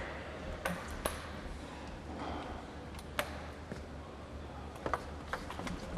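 A table-tennis ball tapping and bouncing between points: a handful of short, sharp clicks at uneven intervals over a low hall hum.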